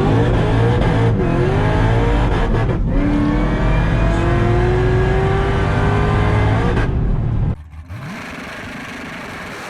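Car engine at full throttle, accelerating hard. Its pitch climbs and drops back at gear changes about one, three and seven seconds in. About three-quarters of the way through, the engine sound cuts off abruptly to a much quieter steady background.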